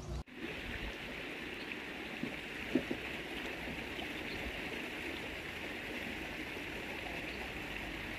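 Steady, even outdoor hiss, strongest in the upper-middle range, with one brief soft knock about three seconds in.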